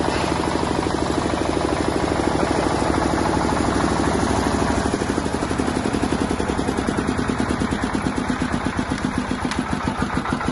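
Bajaj 12.5 kVA diesel generator set's engine running. Its beat is dense and even at first, then from about halfway through it slows, and the separate firing pulses stand out more plainly.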